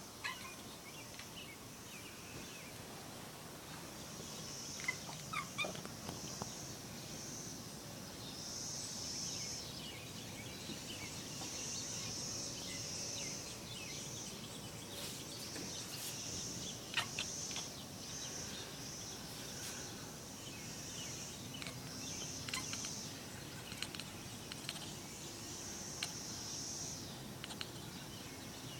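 A domestic cat making her odd hunting noise, the chattering that cats make when they fix on prey they want to catch.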